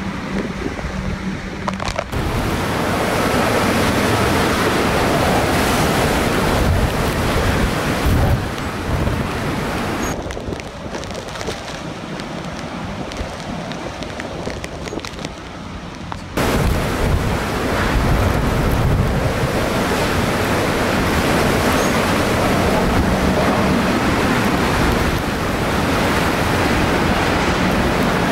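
Typhoon-force wind and torrential rain making a loud, steady rushing noise. For about six seconds in the middle the noise is duller and quieter, heard from inside a building.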